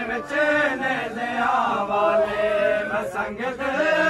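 Men's voices chanting a noha, a Shia lament, in a melodic line with long held notes.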